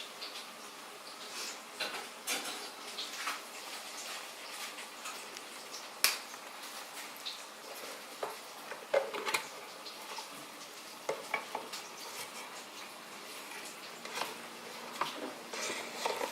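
Vegetable pakoras deep-frying in hot oil, a steady soft sizzle, with scattered sharp clinks of a metal utensil against the pan.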